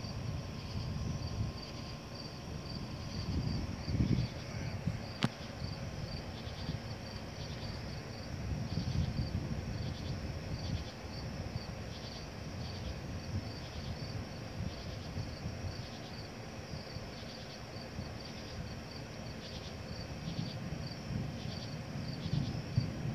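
Crickets chirping in a steady pulsing chorus, over a low rumble that swells and fades. There is one sharp click about five seconds in.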